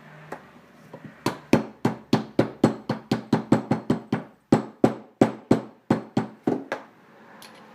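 A hammer tapping a socket to drive a press-fit bearing down onto a motorized-bike engine's crankshaft. It makes a quick run of about twenty sharp taps, roughly four a second, starting about a second in, with a short break near the middle, as the bearing is seated.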